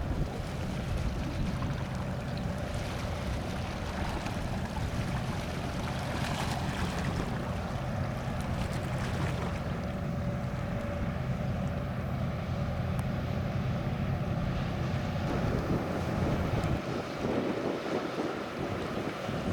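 A passing vessel's engine droning steadily and low, with wind buffeting the microphone. About seventeen seconds in, the drone falls away and the wind noise is left.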